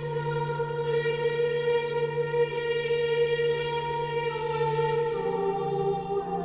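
Choir singing long held chords, moving to a new chord about five seconds in.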